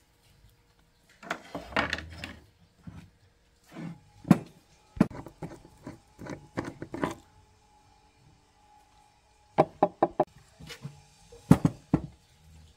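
Irregular knocks and clinks of an electric hand planer's metal housing and parts being handled and set down on a wooden workbench as it is taken apart. They come in several quick clusters, the loudest about four seconds in and again near the end.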